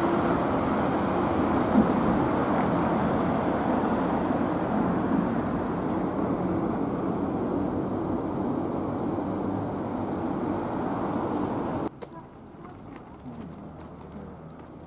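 Road traffic on a city street, a steady wash of car and tyre noise. About twelve seconds in it cuts off suddenly to a much quieter street background with a few faint ticks.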